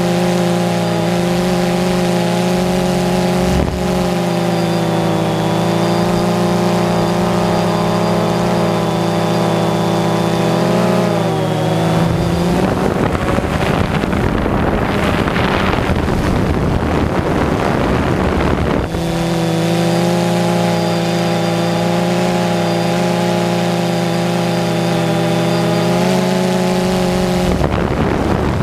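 A camera drone's electric motors and propellers hum steadily at one pitch. Their pitch shifts slightly about eleven seconds in, and a rushing noise from wind on the microphone takes over for several seconds before the steady hum returns.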